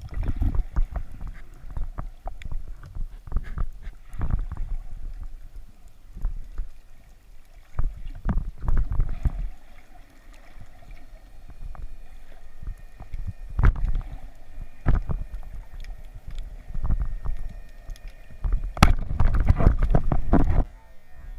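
Underwater sound picked up by a diver's camera in its housing while spearfishing: irregular low rumbles of water moving around the housing, with sharp clicks and knocks scattered through. It is busiest and loudest near the end, then cuts off abruptly.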